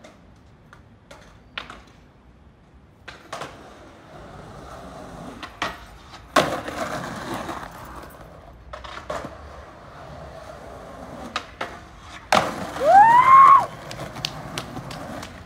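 Skateboard sounds on concrete: scattered sharp clacks and knocks of the board, a stretch of wheels rolling about halfway through, and a louder burst with a rising-then-falling squeal near the end.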